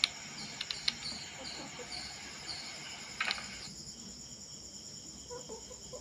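Faint insect chirping: a short high chirp repeating about twice a second over a steady high hum, stopping a little past halfway, with a few light clicks.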